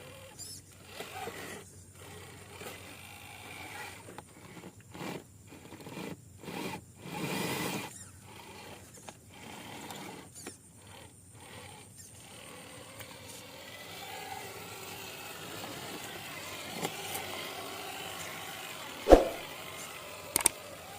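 Radio-controlled model truck driving in short stop-start bursts for about twelve seconds, its small motor and gears whirring, then running more steadily. A single sharp click comes near the end.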